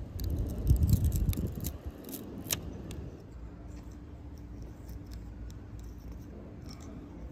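Plastic curing strip peeled away and a single-edge razor blade scraping cured repair resin off windshield glass: a run of sharp scratchy clicks and scrapes over the first three seconds. After that it is quieter, with a few faint clicks near the end over a low steady hum.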